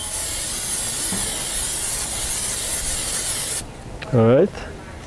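Aerosol cooking spray hissing steadily for about three and a half seconds as it coats a stainless steel pan. Near the end there is a short vocal sound.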